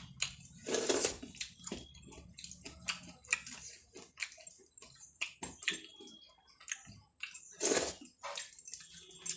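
Eating rice with curries: irregular wet squishing and chewing sounds, with louder bursts about a second in and near the end.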